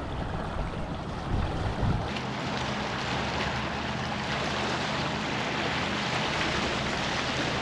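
Steady rushing and lapping of the canal's current against a rocky shore, with wind on the microphone; the low rumble drops away about two seconds in.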